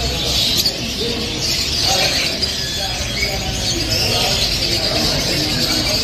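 A dense chorus of many caged birds chirping at once, steady throughout, over a low murmur of voices.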